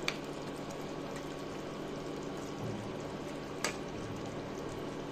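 Chicken curry simmering in a pot as a wooden spoon stirs through the thick sauce, with two sharp knocks of the spoon against the pot, one at the start and one a little past halfway.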